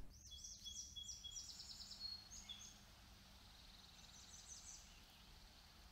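Faint birdsong: a run of quick, high, repeated chirps in the first couple of seconds, then another rapid trill of repeated notes a few seconds in, over a quiet low background hum.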